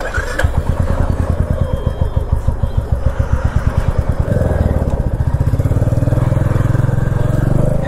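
Motorcycle engine pulling away: a steady low pulsing beat that quickens and gets fuller about four seconds in as the revs rise.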